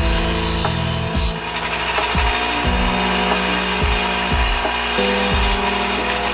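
Ryobi bench grinder running, a steel lawn mower blade ground against the wheel for about the first second and a half, then the grinder spins on with the blade lifted off. Background music with a steady beat runs underneath.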